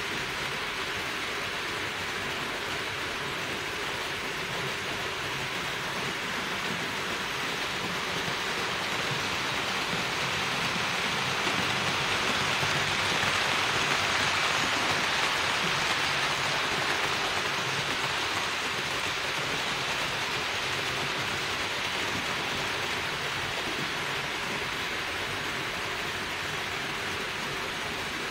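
HO-scale model train running over the layout's track: a steady rushing rumble of wheels on rails and running gear that swells as the train passes close by about halfway through, then eases off.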